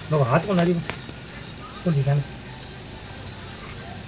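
Steady high-pitched insect trill with a brief break about three seconds in. A man's voice is heard briefly near the start and about two seconds in.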